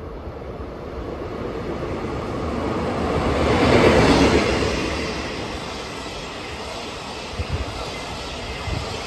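DD51 twin-engine diesel-hydraulic locomotive passing close by, its engine rumble swelling to a peak about four seconds in, then fading as the 12-series passenger coaches roll past with a couple of wheel thumps near the end.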